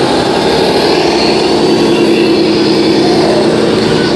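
Tamiya 1/14 scale RC tractor truck's onboard sound unit playing a steady diesel engine sound as the truck drives.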